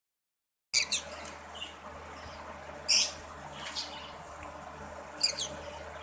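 Green-cheeked conures giving short, sharp chirping calls, about half a dozen scattered through, over a steady low hum.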